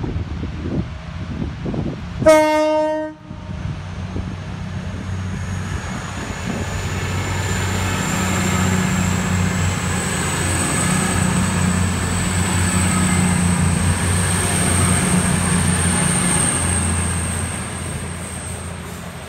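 A train horn sounds once, a short single blast about two seconds in. Then an East Midlands Railway Intercity diesel train passes, its engine drone and wheel noise building to a peak through the middle and fading near the end.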